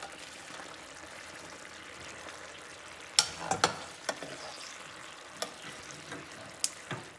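Fried soya chunks being stirred in a pan of hot, cornstarch-thickened sauce: a steady sizzle, with sharp knocks of the spoon against the pan starting about three seconds in and a few more toward the end.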